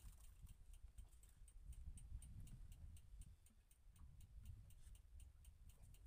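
Near silence: a faint low rumble with a faint, even ticking, about four ticks a second.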